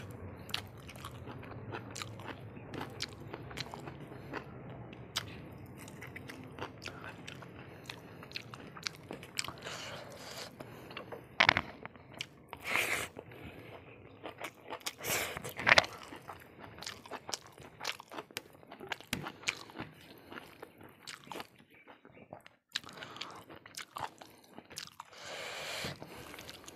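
A person chewing and crunching food close to the microphone, with wet mouth noises and many small crunches. A few louder, sharp crunches come near the middle.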